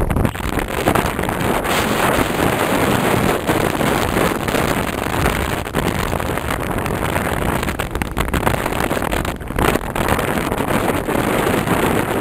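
Wind rushing over the microphone of a camera riding on a moving vehicle, with the engine and road rumble of the vehicle underneath: a loud, steady rush.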